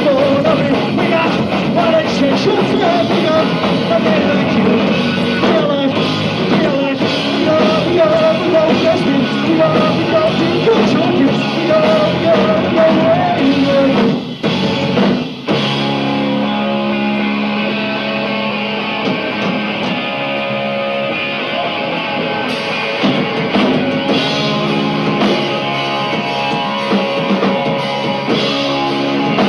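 Live punk rock band playing loudly with distorted electric guitars, bass and drum kit, as picked up by a camcorder in a small club. About halfway through the band stops briefly twice in quick succession, then carries on with steadier held chords.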